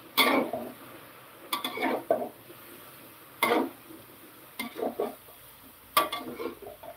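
Metal spatula scraping and clanking against an aluminium wok while stir-frying sliced luffa, in about five short bouts spaced a second or so apart.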